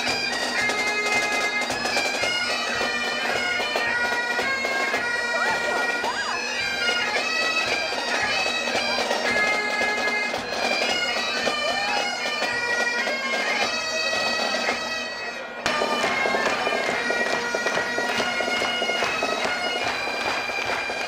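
Bagpipes played by a pipe band: a tune of held notes stepping up and down over a steady drone. About three-quarters through the sound dips briefly and cuts straight back in.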